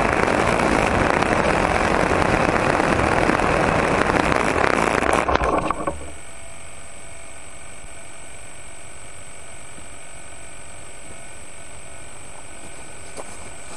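A model airplane's OS .40 glow engine and its wheels running over grass: a loud steady rush that drops off sharply about five to six seconds in as the plane comes to rest. After that a quieter steady hum with a thin high whine.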